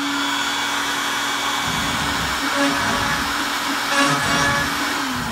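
CNC router spindle running with a steady whine. From about two seconds in, the V-bit cuts into the wooden board, adding a rough, uneven cutting noise under the whine.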